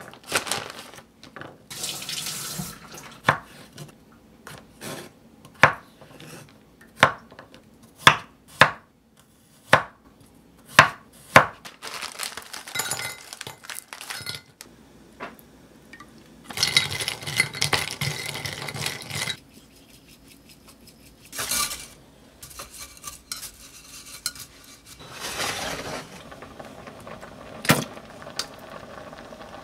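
Kitchen food-prep handling: peeled garlic cloves and utensils knocking on a wooden cutting board, with several sharp knocks about a second apart in the first half. Then a few seconds of rustling or pouring as a plastic bag is tipped into a glass measuring jug, followed by a few more clicks.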